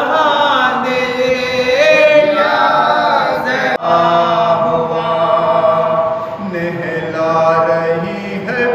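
Men chanting a slow, melodic Shia mourning elegy from a book, with long held notes. The recitation breaks off about four seconds in, and a lower male voice carries on.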